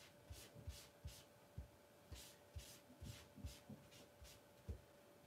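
Foam ink blending tool dabbing and swirling ink through a plastic stencil onto paper: faint, soft taps with a brief swish, about two a second.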